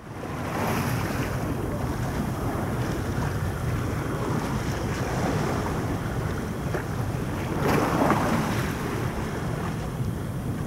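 Wind buffeting the microphone over a steady rush of water, swelling briefly about a second in and again, more strongly, about eight seconds in.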